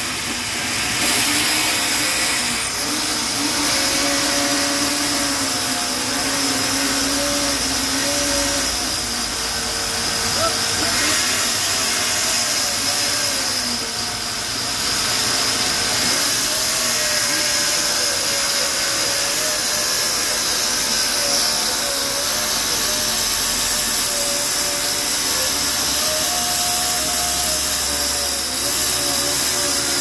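Sawmill saw running through a hardwood log: a steady, loud machine noise with a wavering whine.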